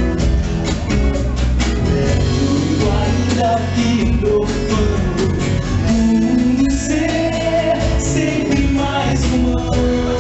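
Live music: a woman singing with acoustic guitar and band accompaniment, the voice coming in about two seconds in.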